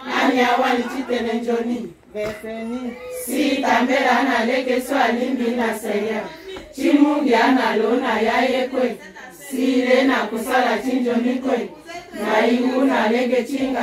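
A group of women singing together in unison, in sung phrases of about two seconds with short breaks between them.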